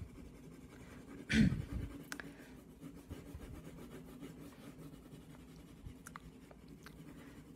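Colored pencil scribbling back and forth on paper, shading with lines laid close together. There is a brief, louder noise about a second and a half in.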